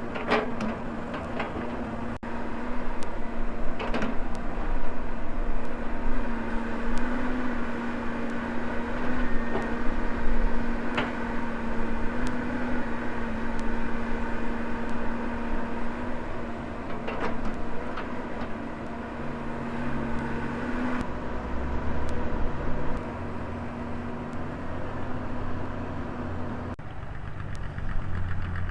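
Volvo excavator's diesel engine running steadily with a hydraulic whine, and a few sharp knocks from the bucket and arm working. The steady tone drops out near the end while the engine keeps running.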